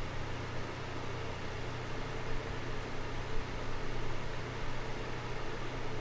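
Small electric desk fan running steadily: an even rush of moving air with a low, constant hum underneath.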